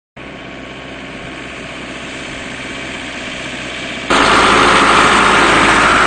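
A motor vehicle's engine running steadily. About four seconds in the sound jumps abruptly much louder and hissier, then stays steady.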